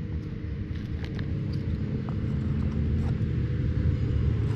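Snowmobile engines approaching on the trail, a steady low drone growing gradually louder, with a few light clicks.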